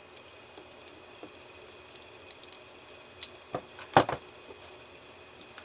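Small metal finger-joint parts and slip-joint pliers clicking and clinking as they are handled and set down, with faint ticks at first and a short cluster of sharp clinks a little over three seconds in, loudest at about four seconds.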